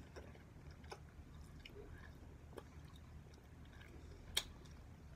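A person chewing soft candy with closed lips, with a few faint wet mouth clicks and one sharper click about four seconds in.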